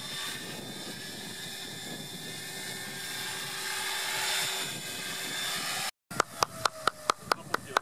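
1:10 scale RC helicopter with a four-blade rotor head and a Kontronik electric motor, in flight: a steady rotor and motor whine. After an abrupt cut near the end, a quick run of sharp clicks follows, about five a second.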